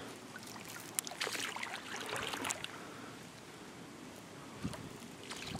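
River water lapping and trickling against the hull of a drifting inflatable canoe, with small irregular splashes.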